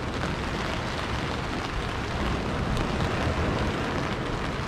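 Heavy rain, absolutely chucking it down, falling on a fabric fishing umbrella overhead: a steady, even hiss, with wind rumbling on the microphone underneath.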